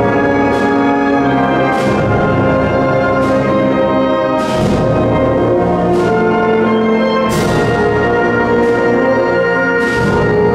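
Symphonic wind band playing a Spanish Holy Week processional march, brass-led sustained chords over a slow beat, with a crash marking each beat about every second and a half.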